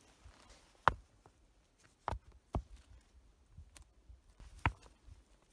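Rocks being set down by hand to build a fire ring, knocking against each other on dry ground: about four separate sharp knocks, with the loudest about a second in.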